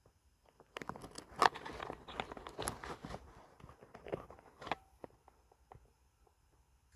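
A run of crunching, rustling clicks for about four seconds, loudest in its first half, then a few scattered clicks.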